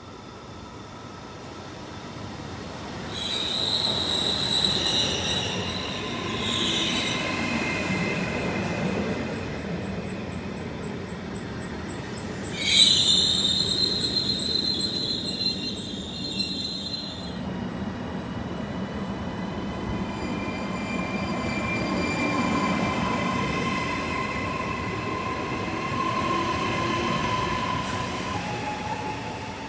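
Train rolling along the track with its wheels squealing against the rails. High-pitched squeals come in about three seconds in and again, loudest, around thirteen seconds, followed by a lower, steadier squeal in the second half.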